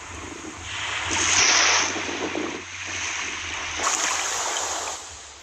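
Rushing water, like surf or a stream, that swells about a second in and surges again near four seconds.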